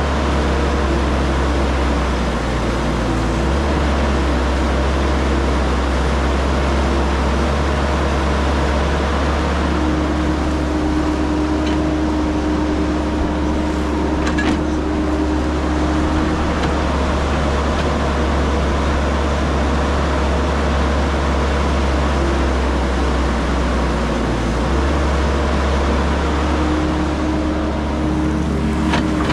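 CAT 312 hydraulic excavator's diesel engine running steadily under working load as the machine swings and digs. A higher steady whine joins for several seconds about a third of the way in and again near the end. A few sharp knocks come at the very end.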